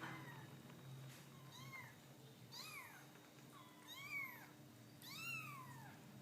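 Cat meowing repeatedly: about five short, high meows roughly a second apart, each rising and then falling in pitch.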